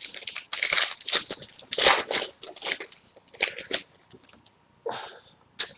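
A hockey card pack's wrapper being torn open and crinkled by hand, in a series of short, irregular crackling rustles with brief pauses between them.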